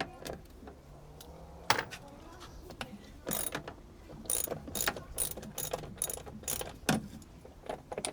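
Ratchet wrench clicking in short, irregular runs while loosening the fastening to open a Jandy cartridge pool filter, with a sharp click a couple of seconds in and the clicking getting busier after that.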